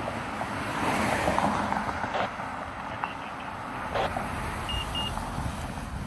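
Motor vehicle traffic noise, swelling about a second in as a vehicle goes by, with a few sharp knocks and two short high beeps near the end.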